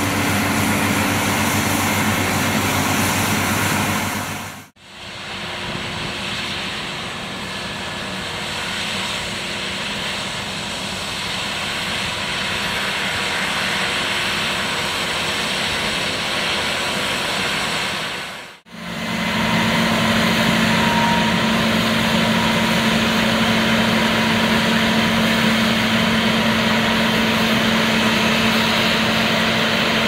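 Heavy diesel farm machinery running steadily, an engine hum over the broad noise of the machine working. The sound dips out briefly twice, about five and about nineteen seconds in.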